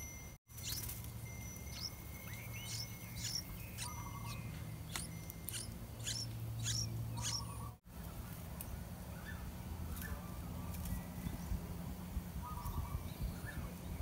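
Yellow-vented bulbul chick begging for food: a quick run of thin, high chirps, each a short sweep in pitch, with only a few sparser calls in the later part.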